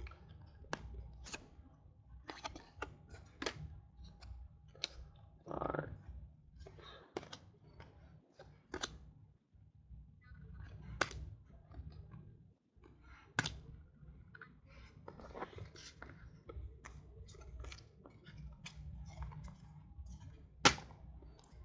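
Football trading cards flicked and slid against one another as a stack is sorted through by hand: irregular sharp clicks and soft rustles, over a low steady hum.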